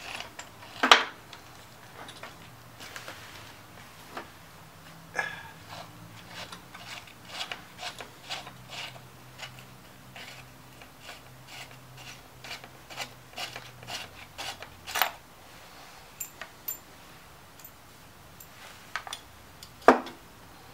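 Plastic air cleaner housing on a Honda GCV160 mower engine being handled and worked loose: scattered clicks, taps and light rattles, with sharper knocks about a second in, midway and near the end.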